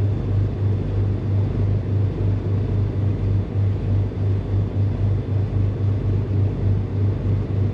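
Beechcraft G58 Baron's twin six-cylinder Continental IO-550 piston engines running at low taxi power, a steady low drone with a regular throb about four times a second.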